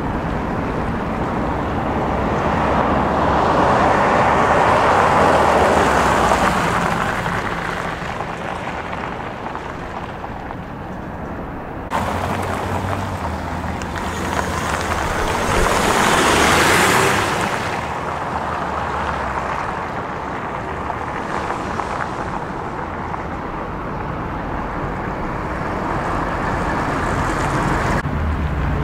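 Rushing road-vehicle noise with wind on the microphone, swelling twice and changing abruptly about twelve seconds in and again near the end.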